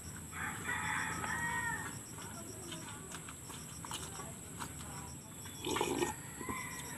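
Outdoor background of a bird calling for about a second, starting about half a second in, over a steady high insect drone. Small clicks of eating by hand follow, and there is a short sip from a coffee mug near the end.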